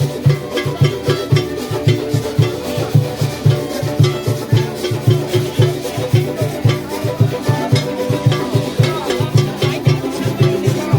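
Caribbean string band playing a lively tune: a bass line of quick repeated notes, about four a second, under strummed strings, with steady rhythmic percussion on top.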